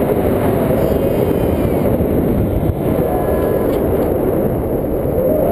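Steady, loud wind rush buffeting the camera's microphone in flight under a tandem paraglider.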